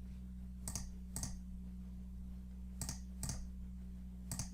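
A computer mouse clicking six times in three pairs, each pair about half a second apart, as folders are double-clicked open. A steady low electrical hum runs underneath.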